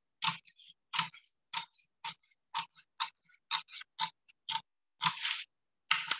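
Scissors cutting through a cardstock cover, a steady run of snips about two a second.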